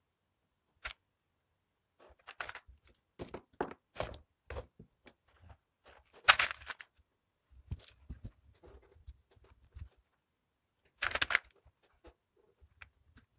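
Plastic LEGO parts and cables being handled and set down on a table: irregular clicks, rattles and light knocks, loudest a little after six seconds in and again around eleven seconds.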